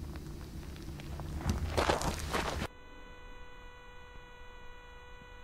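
Footsteps and handling noises on rocky ground, louder about two seconds in. This is followed by an abrupt cut to a quiet stretch with a faint steady electronic hum made of several pure tones.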